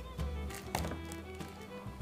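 Background music, with one light knock about three-quarters of a second in.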